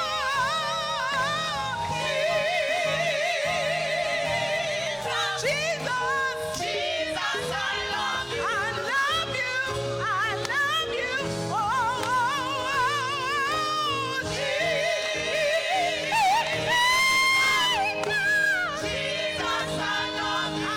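Gospel solo singing with heavy vibrato and melismatic runs over held accompanying chords. A long, loud high note is held about sixteen to eighteen seconds in.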